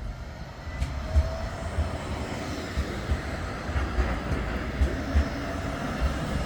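Bombardier Flexity 2 tram running past on street track: a steady rumble with a faint hum.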